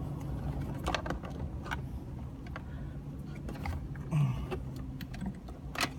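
Trim around a car's gear shifter being worked loose by hand: a few scattered clicks and knocks over a steady low hum.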